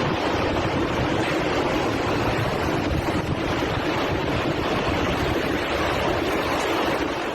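Strong tornado wind blowing hard across the microphone: a loud, steady rush of noise.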